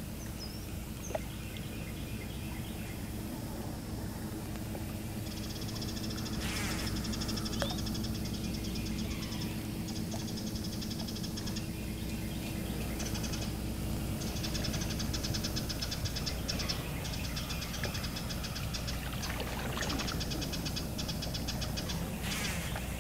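Calling wildlife: high, rapid buzzing trills from small animals, repeated in runs of a few seconds, over a steady low hum. A short rushing noise comes about six seconds in and another near the end.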